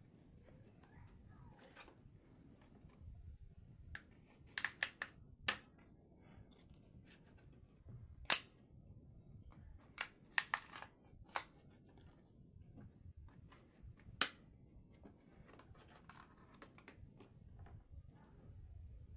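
Sharp plastic clicks and snaps of a Realme C11 smartphone being taken apart and handled with small tools, in irregular clusters with the loudest snaps about eight and fourteen seconds in.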